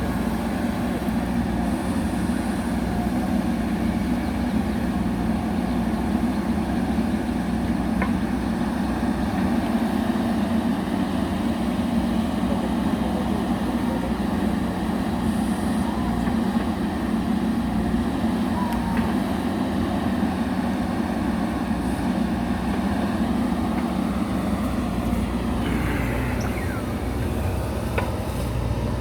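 JCB backhoe loader's diesel engine running steadily with an even low hum; the note shifts briefly near the end.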